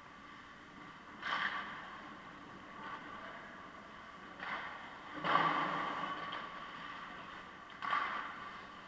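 Ice hockey play at the far end of an indoor rink: four sudden clacks and scrapes from sticks, skates and puck, each ringing on for a second in the arena's echo.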